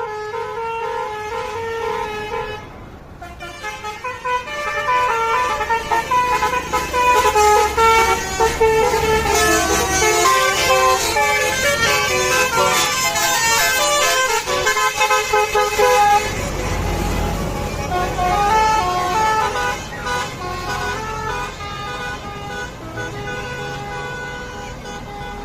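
Basuri telolet horn, a multi-tone musical vehicle horn, playing a fast melody of changing notes, several tones sounding together. A low rumble swells under it about two-thirds of the way through.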